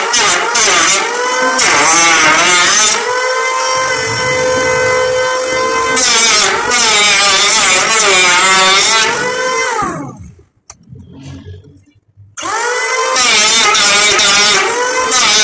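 Handheld electric planer running and shaving a wooden plank, its motor whine wavering in pitch as the blade bites. About ten seconds in it is switched off and winds down with a falling whine, then about two seconds later it starts again and keeps cutting.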